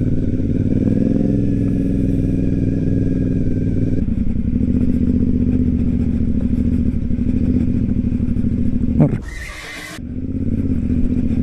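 Aprilia Dorsoduro 900's V-twin running through an aftermarket Roads Italia Proj Six exhaust, ridden off-road with the throttle rising and falling. About nine seconds in, the engine note drops away for roughly a second under a short hiss, then picks up again.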